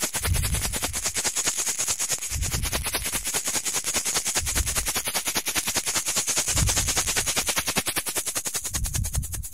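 A fast, even run of sharp rattling clicks, over low rumbling swells that come about every two seconds and a steady high hiss.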